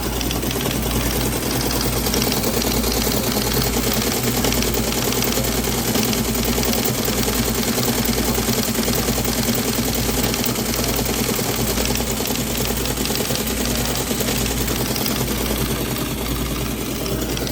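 Teletype printer running, a steady, rapid mechanical clatter of many small strikes over the hum of its motor.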